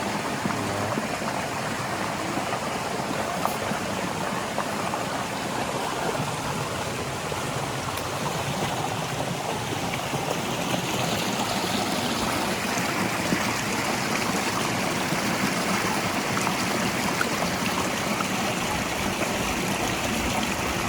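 Steady rush of water pouring over a jungle waterfall and through its stream, an even hiss that holds at one level throughout.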